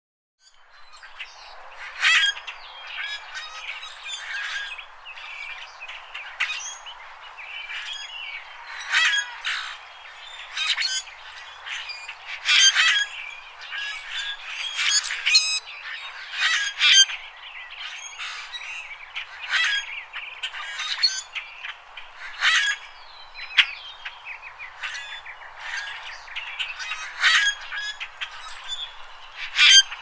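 Common grackles calling: a continuous chatter of overlapping calls, with louder calls standing out every two or three seconds.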